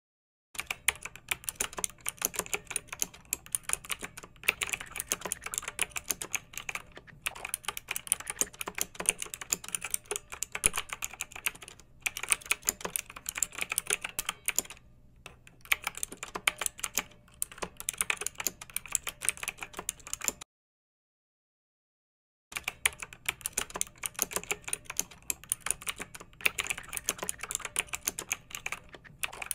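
Fast, continuous clicking and tapping like typing on a keyboard, with a steady faint hum underneath. It cuts out completely for about two seconds around two-thirds of the way through, then resumes.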